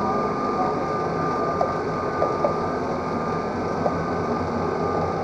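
Cable lift running as it descends a rock shaft: a steady mechanical rumble with a constant high whine and a few faint ticks from its winch and cables.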